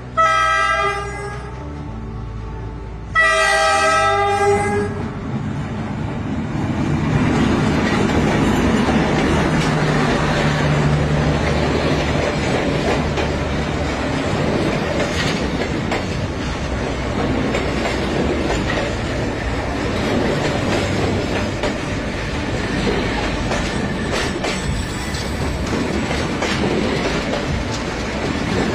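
Passenger train's horn sounds twice: a short blast at the start and a longer one about three seconds in. The train then rolls past close by with a steady rumble and a clatter of carriage wheels over the rail joints.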